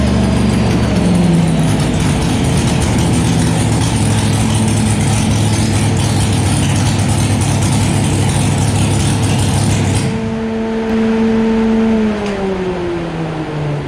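Methanol-injected, naturally aspirated ex-NASCAR SB2.2 321 ci small-block V8 in a C/Dragster running hard at steady high revs on a chassis dyno. About ten seconds in the harsh noise cuts off suddenly, leaving a steady tone that falls in pitch near the end as the revs wind down.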